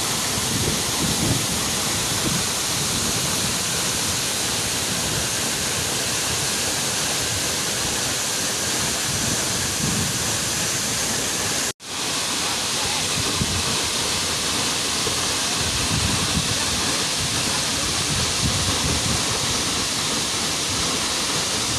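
Steady rush of a 30-metre waterfall plunging into its pool, a dense even noise of falling water. About halfway through it cuts out for an instant and comes straight back.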